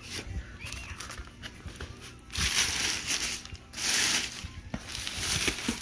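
Thin plastic packaging wrap crinkling and rustling as it is pulled back inside a cardboard box. It is loudest in two stretches, starting about two and a half and about four seconds in, with quieter handling sounds between.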